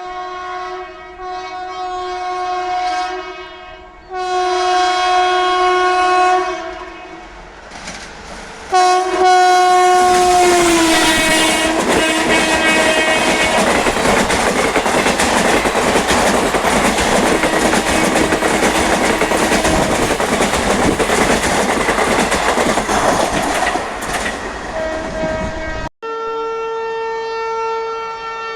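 Indian Railways electric locomotive's twin-tone horn sounding in long blasts as the train approaches. Its pitch drops as the locomotive passes, and the coaches follow with a loud rush and wheels clattering on the rails for over ten seconds. After a sudden cut near the end, another horn sounds steadily.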